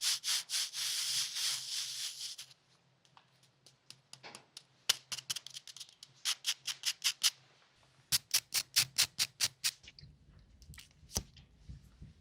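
ASMR rubbing and scratching sounds: runs of quick, evenly spaced strokes, about five a second, with quieter scattered ticks between the runs.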